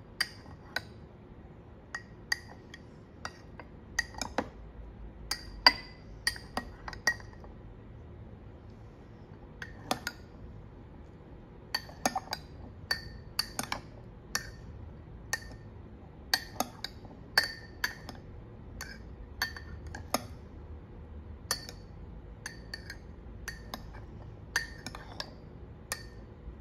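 Metal spoon clinking against white ceramic cups while stirring natto starter into cooked soybeans. The clinks are sharp and irregular, each with a brief ring, and some come in quick clusters.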